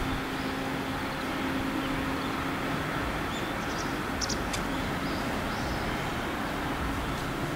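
Steady outdoor background noise with a faint low hum, and a few short high chirps about halfway through.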